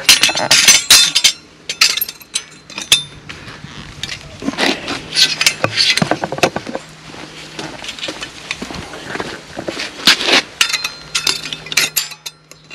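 Metal bricklaying tools clinking, knocking and scraping against concrete blocks: clusters of sharp clinks, loudest in the first second and again about five and ten seconds in.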